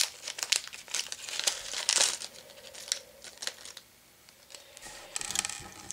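Small plastic packaging bag crinkling as it is handled and emptied, in quick crackles for the first few seconds, dying down about four seconds in, then crackling again near the end.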